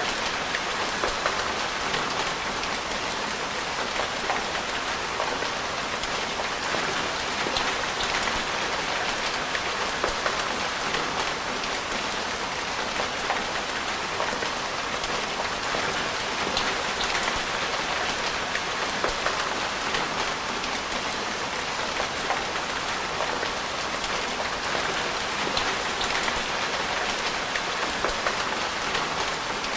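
Steady rainfall: an even hiss of rain with many small sharp ticks of drops striking a surface.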